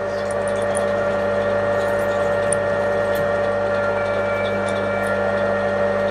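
Metal lathe running steadily while a twist drill in the tailstock feeds into a spinning brass pump body in the chuck: an even motor and gear hum with a few faint ticks from the cut.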